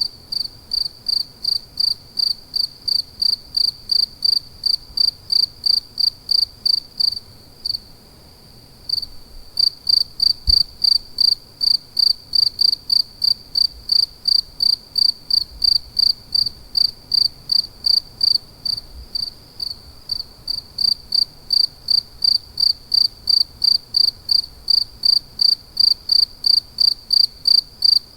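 Cricket chirping in a steady, even rhythm of high-pitched chirps, about three a second. The chirping stops briefly about eight seconds in, then resumes.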